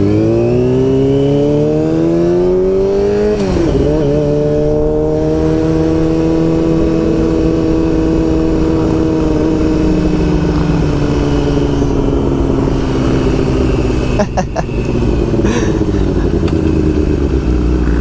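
Yamaha R6S's inline-four engine under way, accelerating with a steadily rising pitch, then a gear change about three and a half seconds in and a long, nearly steady cruise. Its note dips sharply for a moment around fourteen seconds in, then steadies again.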